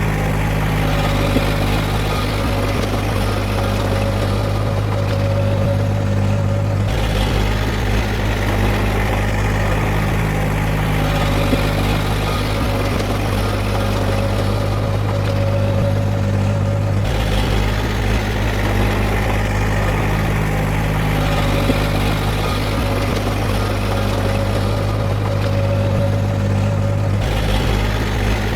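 Diesel engine of heavy earthmoving machinery running steadily with a deep hum, its sound changing abruptly about every ten seconds.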